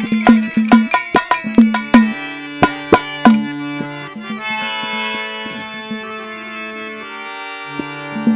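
Instrumental interlude of a devotional bhajan. A hand drum plays a fast run of ringing strokes with small hand cymbals clinking for about two seconds, then a harmonium holds chords with only a few strokes, and the drum comes back in near the end.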